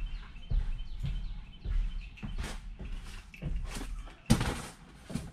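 Footsteps and irregular knocks of someone moving about inside an empty school bus and handling its loose seat parts, with one loud crash a little over four seconds in.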